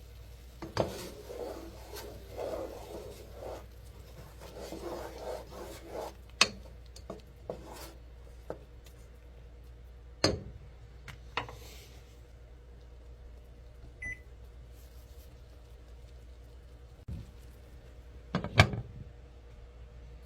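Kitchen handling sounds: scattered knocks and clinks of dishes or utensils being moved, with rubbing and rustling in the first few seconds. A short high tone comes about 14 s in, and a sharp knock near the end is the loudest sound.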